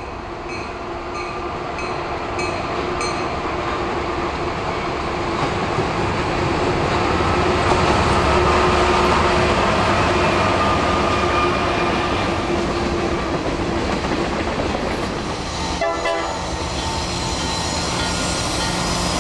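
Alco diesel locomotives working a freight train, their engine drone growing louder as they approach. About 16 seconds in the sound changes abruptly to another Alco-led train approaching.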